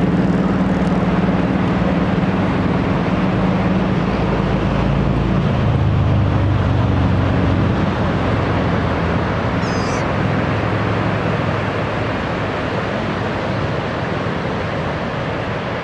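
A motor vehicle's engine running close by, its low hum dropping in pitch about five and a half seconds in, over the steady wash of breaking surf.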